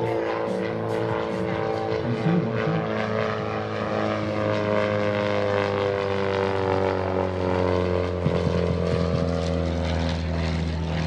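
Christen Eagle aerobatic biplane's four-cylinder Lycoming engine and propeller droning steadily as it flies past close by. The note drops in pitch over the middle of the pass.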